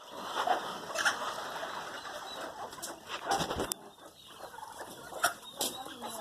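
Chickens clucking, with a few short, sharp sounds scattered through.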